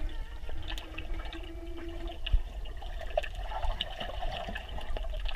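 Swimmers moving through pool water, heard underwater: a steady, muffled low rumble with scattered small pops and clicks of bubbles.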